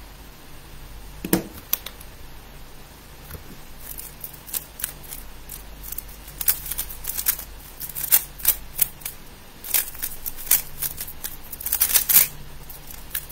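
3x3 speed cube turned rapidly by hand: its plastic layers make quick, sharp clicks that come thicker and louder toward the end. There is a single knock about a second in.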